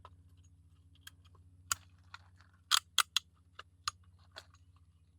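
PVC pipe and plastic couplings being handled and fitted together: a string of short, sharp plastic clicks and knocks, three in quick succession about three seconds in.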